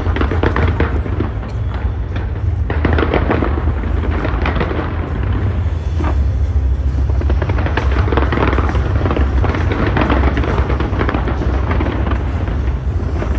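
Fireworks display going off in rapid succession: a dense, continuous crackle of bursts over a steady deep rumble, with music mixed in.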